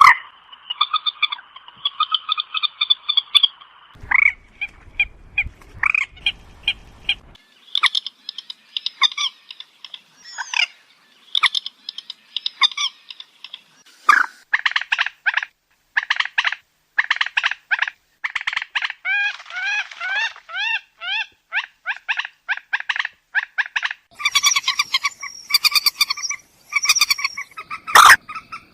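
Moorhen calling: runs of short, quick-repeated calls, some rising or falling in pitch, turning into a dense chatter near the end. A low rumble lies under the calls for a few seconds in the first third.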